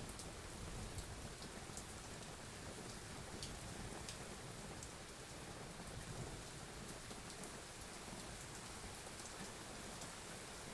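Steady rain falling, an even hiss with scattered sharp drop ticks, over a low rumble of distant thunder.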